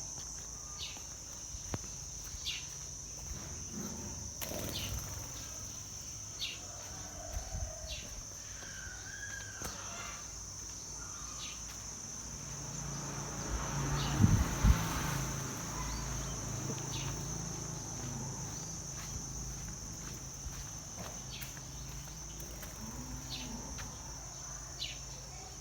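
Steady high-pitched insect drone with a bird's short chirps repeating about every one to two seconds. A few low thumps and a brief rumble come about halfway through, the loudest part.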